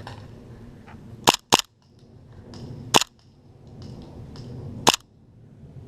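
Airsoft guns firing single shots: four sharp cracks, two in quick succession about a second in, then one at about three seconds and one near the end, with low rustling between them.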